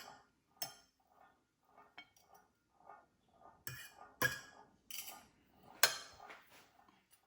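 A metal serving spoon clinking against a plate and bowl while coleslaw is served: a string of sharp clinks, the loudest near the end.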